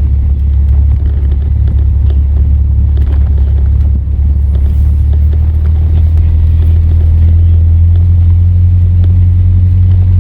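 Volvo station wagon being driven: a loud, steady, low engine and road rumble, which becomes a more even hum about halfway through.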